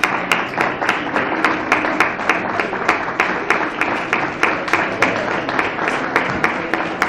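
A roomful of people applauding, breaking out suddenly and keeping up an even, dense clapping with individual sharp claps standing out.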